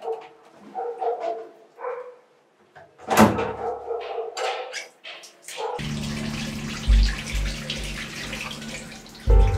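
A washbasin tap is handled with a loud knock and a few clicks, then water runs steadily into the sink over a low steady hum.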